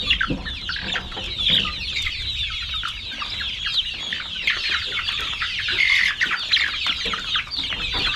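A shed full of about two hundred young laying chickens, one and a half to two months old, calling all at once: a steady din of many overlapping short, high, falling chirps.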